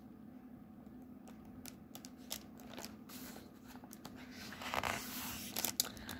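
Pages of a hardcover picture book being handled and turned: soft paper rustling and sliding with small clicks, louder over the last two seconds, above a faint steady low hum.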